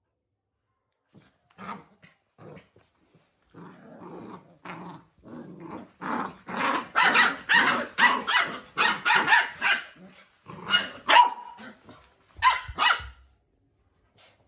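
Bhotia and Labrador puppies play-fighting, yapping and growling. A few scattered yaps come first, then a quick run of barks from about six to ten seconds in, and a couple more near the end.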